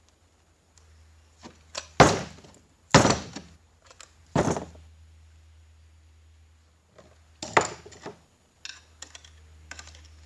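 Metal parts of a 4L60E automatic transmission clunking and clinking as they are handled and set down during a teardown, with four loud knocks at about 2, 3, 4.5 and 7.5 seconds and lighter clicks between them.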